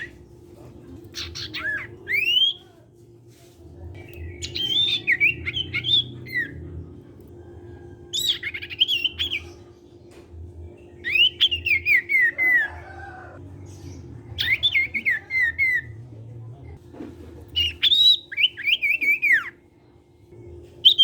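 A songbird the keepers call a sirtu, singing in full 'gacor' voice in its cipow style: short phrases of quick, slurred whistled notes that come in bursts every couple of seconds. A faint steady hum lies underneath.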